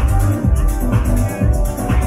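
Electronic dance music from a DJ set played loud over a club sound system, with a steady, heavy bass beat.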